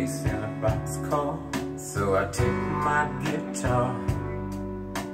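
Soul recording played through stand-mounted hi-fi loudspeakers in a listening room: guitar over a sustained bass line.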